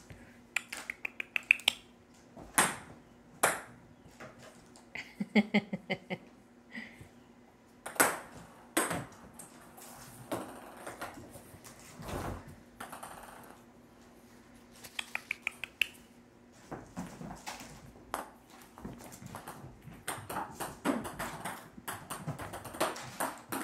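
Ping pong balls bouncing on a hardwood floor, several runs of quick bounces that speed up and die away, with louder single knocks in between.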